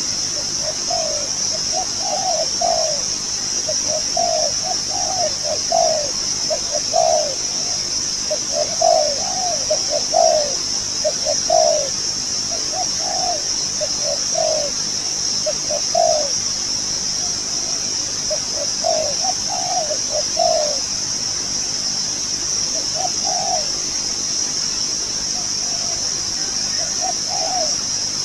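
A decoy dove cooing: runs of short low notes in quick phrases, with pauses between the runs and sparser calls near the end. A steady high insect buzz runs underneath.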